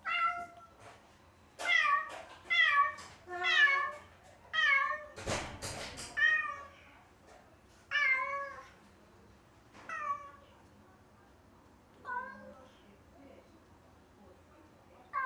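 Domestic cat meowing about ten times, loud drawn-out calls a second or two apart that come less often toward the end: a cat calling for its owners from behind a fence. A short breathy rush of noise comes about five seconds in.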